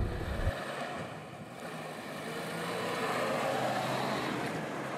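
Moskvich 411 four-wheel-drive wagon driving past, its four-cylinder engine and tyres heard from outside, swelling to loudest about three to four seconds in. A low in-cab rumble cuts off about half a second in.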